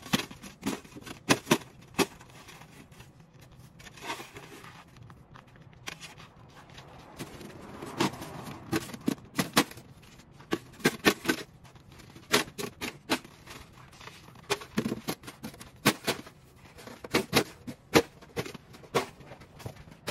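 Snow shovel scraping and knocking along a snow-covered wooden deck in a run of sharp, irregular strokes, with boots crunching in cold, dry snow. There is a lull of a couple of seconds about four seconds in.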